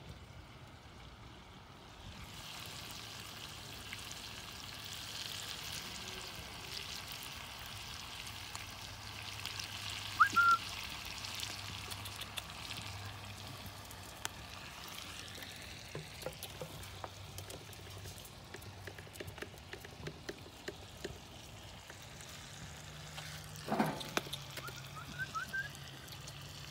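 Chunks of meat frying in a large pan over a wood fire, a steady sizzling hiss through the first half. A short high squeak comes about ten seconds in, and a few knocks near the end.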